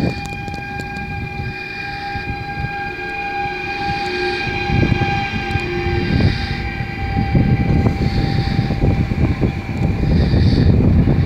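PKP Intercity ED160 (Stadler FLIRT) electric multiple unit running past close by: a rumble of wheels on rails that grows louder, under a steady high whine.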